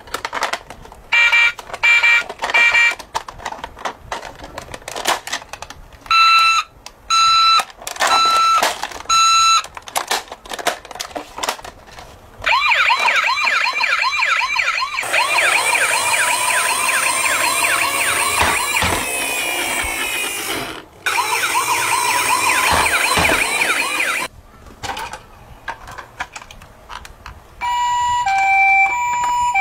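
Battery-powered electronic sirens of toy ambulances, set off one after another, with clicks and rattles of the plastic toys being handled. First come short repeated two-tone beeps. Then a long, fast-warbling siren runs for about ten seconds with a brief break, and near the end a steady hi-lo two-tone siren starts.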